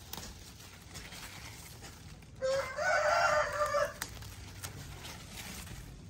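A rooster crows once, a single call of about a second and a half a little before the middle, over faint rustling of leaves.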